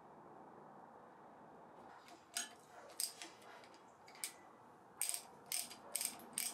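Hand wrench working the bolts of a steel bracket on a cast iron bandsaw frame, with sharp metallic clicks and clinks: a few spaced out in the middle, then a quick run of four near the end.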